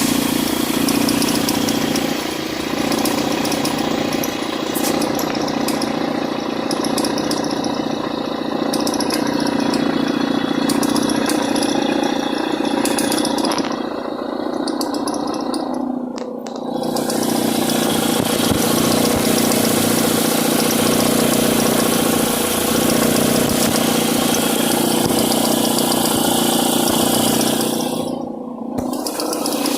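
Mitsubishi ASX engine running with noise from the accessory belt, which vibrates because the alternator pulley's internal clutch is worn and no longer absorbs vibration. The sound changes briefly about halfway through and again near the end.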